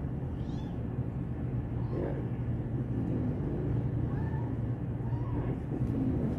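Tiny newborn kitten mewing several short, thin, high cries while being handled, over a steady low hum.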